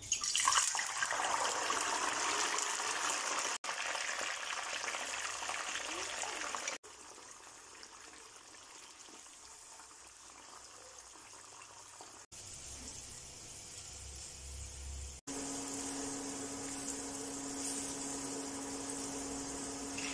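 Soaked green peas deep-frying in hot oil: a loud sizzle that starts suddenly as they go in, then a softer, steady frying hiss after a few cuts. A steady low hum runs under the sizzle near the end.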